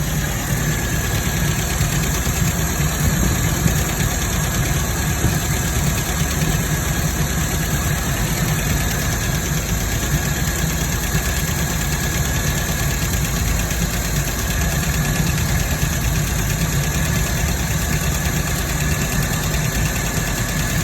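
MGB sports car engine idling steadily, an even rumble with a faint steady whine above it.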